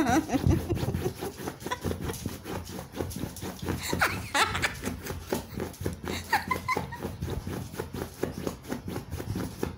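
A puppy clawing and digging at a foam mat, a fast irregular scratching and scraping of its nails on the foam, with a couple of brief squeaky sounds in the middle.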